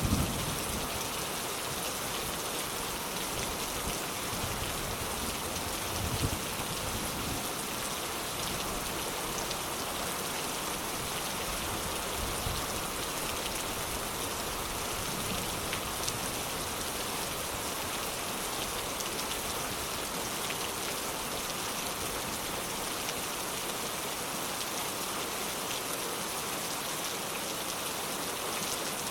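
Soft rain falling steadily: an even hiss of raindrops.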